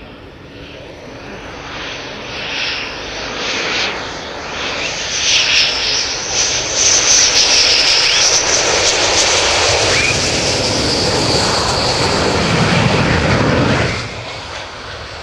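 F-15E Strike Eagle's twin jet engines on landing approach, gear down: a high whine over a rumble, growing steadily louder as the jet closes in and holding loud, then dropping off sharply near the end.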